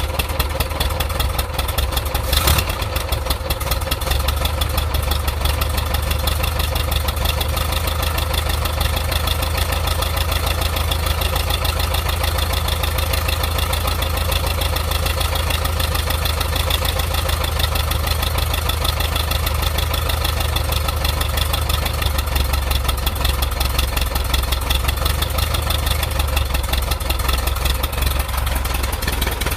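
Air-cooled 1.7-litre VW Type 4 flat-four engine idling steadily with a knocking sound of unknown cause, plus one sharper click about two and a half seconds in.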